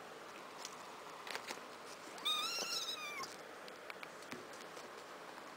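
A six-week-old kitten gives one high-pitched meow about two seconds in, lasting about a second, rising and then falling in pitch. A few faint clicks and scuffs from the kittens' play on the gravel floor are heard around it.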